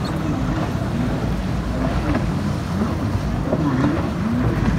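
Wind rumbling steadily on the microphone outdoors.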